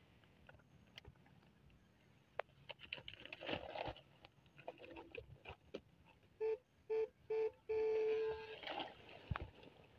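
Rustling and handling in thick weeds with small clicks. About six and a half seconds in, an electronic beeper sounds three short beeps and then one longer beep, all at the same pitch.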